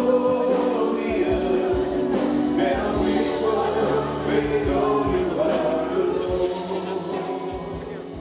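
Gospel song with a choir singing, fading down near the end.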